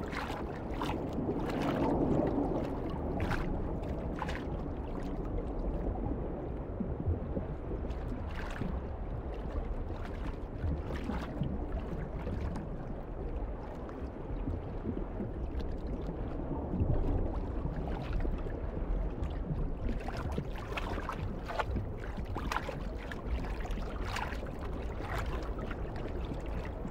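Underwater water sound: a steady muffled rush with scattered bubbling clicks and pops, more of them near the start and in the last several seconds.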